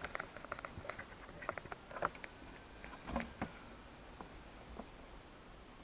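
Scattered light clicks and taps of hands handling small hard parts, irregular and quiet, with slightly louder taps about two and three seconds in.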